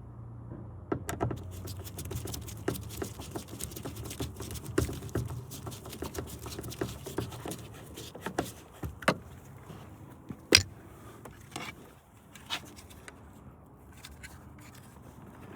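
Irregular small clicks, taps and rattles of hand tools and a screw being worked into a car door's inner panel, with one sharp louder click about ten and a half seconds in.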